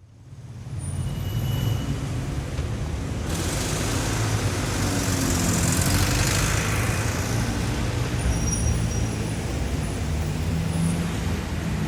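City street traffic: a steady low rumble of vehicle engines under a rushing hiss of tyres and air, fading in at the start. The hiss swells from about three seconds in and eases again after about seven seconds, with a few faint, brief high squeals.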